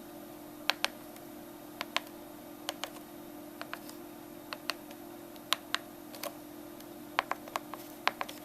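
Keys on a Brother P-Touch 1080 label maker's keypad clicking as text is typed in: sharp clicks, mostly in quick pairs, at an irregular typing pace, over a faint steady hum.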